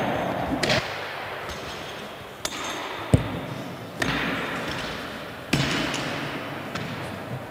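Barbell and weight plates knocking on the platform: about half a dozen separate thumps and clanks, each ringing on with a long echo in a large hall.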